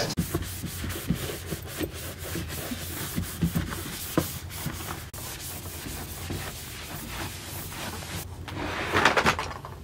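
Irregular rubbing and rustling, broken by scattered light clicks and taps, getting louder shortly before the end.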